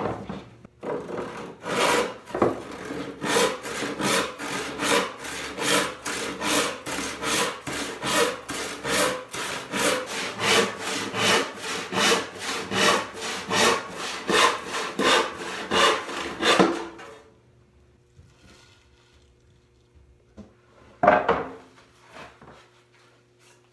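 Handsaw cutting across a walnut board on a saw bench: steady back-and-forth strokes at about two a second, stopping about seventeen seconds in. A single wooden knock follows a few seconds later as the cut pieces are handled.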